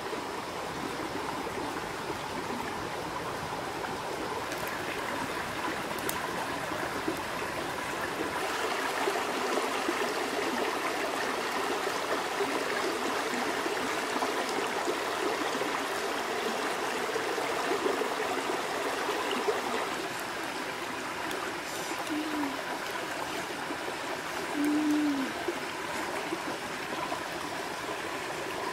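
Shallow stream flowing over rocks, a steady babble that grows louder for a stretch in the middle. Twice near the end, a short low hum cuts in over the water.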